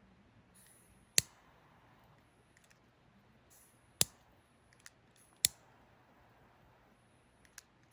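Wood campfire crackling: three loud sharp pops, the first about a second in and two more a second and a half apart past the middle, with fainter ticks and a soft hiss between them.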